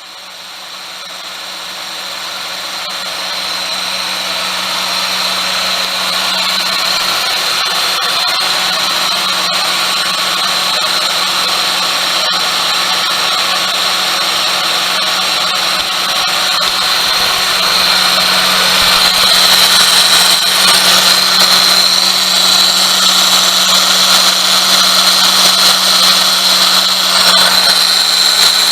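Daihatsu Tanto engine bay running with the air conditioner on, giving a steady high-pitched whine over a grinding rasp, with a low hum underneath. This is the noise of a failing pulley bearing.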